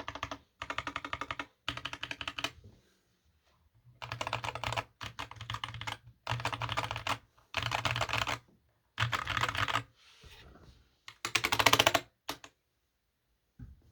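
Typing on a GK61X mechanical keyboard with Akko CS Ocean Blue switches, DSA PBT keycaps and a tempest-tape-modded hot-swap PCB. The key clacks come in quick bursts with short pauses, including a longer pause about three seconds in. The last and loudest burst comes near the end.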